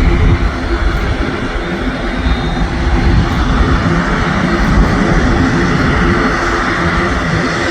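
Loud, steady jet noise from a Boeing C-17A Globemaster III's four turbofan engines: a dense rush and rumble with a steady hum running through it.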